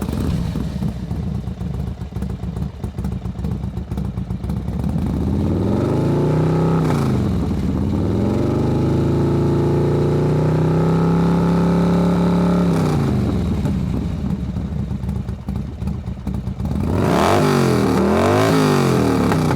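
Harley-Davidson V-twin motorcycle engine running just after starting and being revved. It is held at higher revs for several seconds in the middle, then blipped up and down several times in quick succession near the end.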